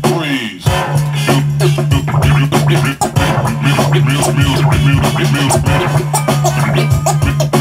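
Vinyl record being scratched back and forth by hand on a DJ turntable, a run of short quick pitch sweeps over a steady low bass note. About half a second in, the sound slides down in pitch and drops out briefly before the bass note returns.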